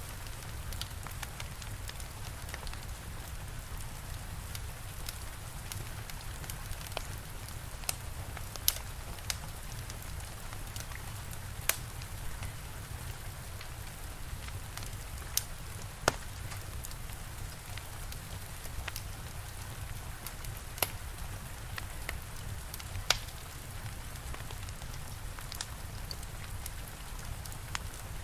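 Steady rain hissing, with a wood fire crackling over it: sharp, irregular pops every few seconds.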